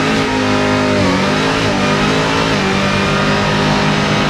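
Chevrolet Camaro ZL1's supercharged V8 held at high revs during a burnout, loud and steady, its pitch shifting in small steps a couple of times.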